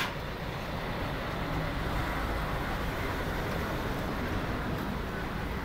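Steady street background noise, with traffic running.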